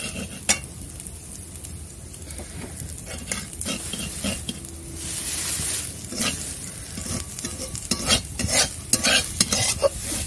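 A metal spatula scraping and stirring pumpkin strips and semolina around a hot metal kadai as they fry, with a steady sizzle. The sizzle swells about halfway through, and quick scraping strokes come thick near the end.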